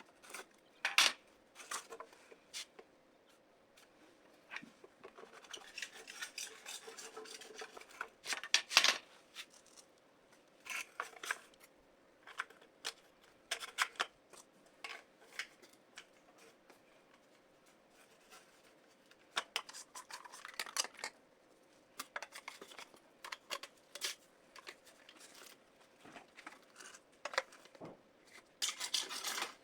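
Hand work on a repair job: scattered clicks and knocks of tools and parts being handled, with stretches of rubbing or scraping about six seconds in and again near the end.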